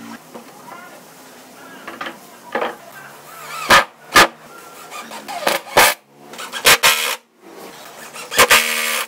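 Sharp knocks of MDF frame pieces being set down and shifted on a wooden board, several in the second half. Near the end a cordless drill runs in short spurts, driving a screw into the frame.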